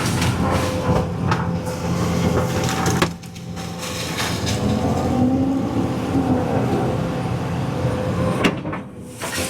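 Cat 320 EL excavator's diesel engine running under hydraulic load, with cracking and crushing of wood and roots as the bucket tears small trees out of a ditch bank. The engine sound drops suddenly about three seconds in, then builds back up.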